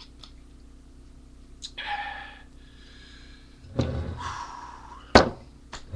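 A man breathing hard and gasping between swigs of a drinking challenge: two noisy breaths, about two and four seconds in. A single sharp knock about five seconds in is the loudest sound.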